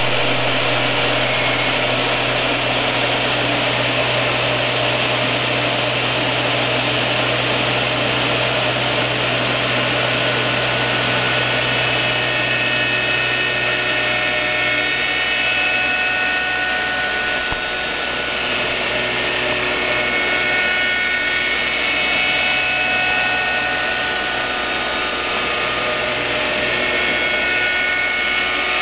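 Lih Woei LH-28-A automatic copy shaping machine running and cutting a wooden workpiece: a steady motor hum under a high cutter whine that grows stronger about halfway through and shifts in pitch as the cutter works around the piece.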